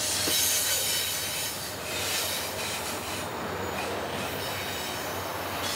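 Freight train cars rolling past on steel rails, with a steady rushing clatter and thin, high squealing from the wheels against the rail.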